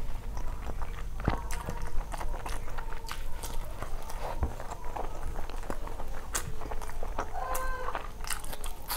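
Close-miked mouth sounds of a person eating rice and curry: wet chewing with irregular lip smacks and tongue clicks.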